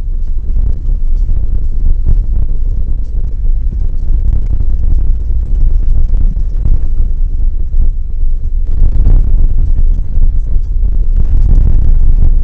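Road noise of a trailer towed over a rough dirt road, heard from a camera on the trailer tongue: a loud, steady low rumble with wind buffeting the microphone and scattered knocks and rattles from the hitch. It grows rougher and louder about nine seconds in.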